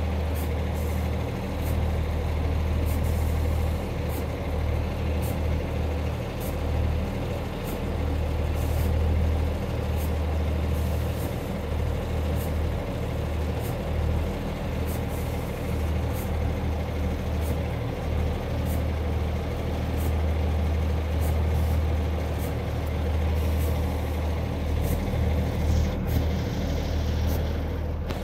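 A Class 144 Pacer diesel multiple unit running slowly past, its underfloor diesel engines giving a steady low drone.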